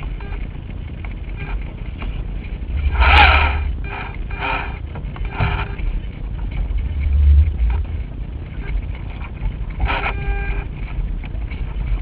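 Gusty wind buffeting the microphone of a camera riding on a radio-controlled sailing yacht: a steady low rumble that swells with gusts about three and seven seconds in. Several short pitched buzzes come through around three, four and a half, five and a half and ten seconds in.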